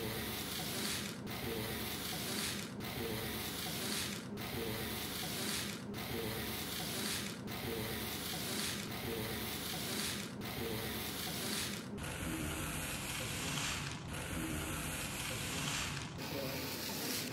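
Model train running along the diorama track: a steady rubbing whir that dips briefly about every one and a half seconds.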